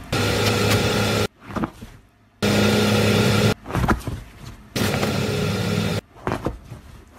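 Car horn sounding three long, steady blasts, each just over a second and evenly spaced, with shorter, quieter sounds between them.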